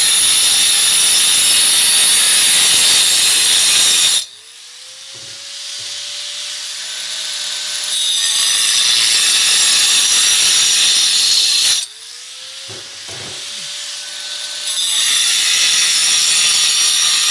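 Handheld angle grinder with a cutting disc sawing through a concrete retaining-wall block, a loud steady grind in three passes. Twice, about 4 s and 12 s in, the disc comes out of the cut, the grinding drops away, and the motor's whine rises as it spins back up.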